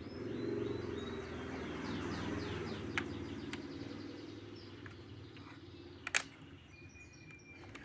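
A laptop DDR3 RAM module being seated in its socket: a few small clicks around three seconds in, then a sharp double click about six seconds in as it snaps into the retaining clips. Birds chirp in the background over a low hum that swells and fades in the first half.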